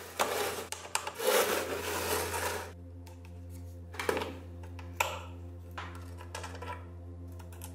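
Gloved hands rubbing and scraping over a rusty radio's metal grille and case, then a screwdriver working a screw on the rusty side handle bracket, with a few sharp clicks about four and five seconds in.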